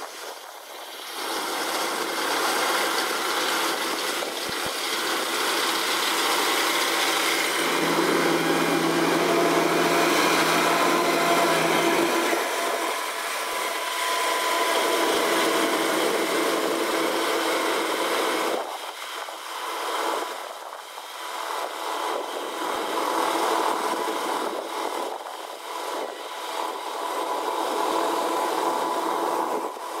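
Kubota DC-105X combine harvester running while it cuts and threshes rice: a dense mechanical clatter over steady whining tones. It is loudest over the first two-thirds, then falls off and wavers as the machine moves away.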